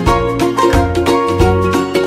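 Background music: an upbeat plucked-string tune over a steady bass beat.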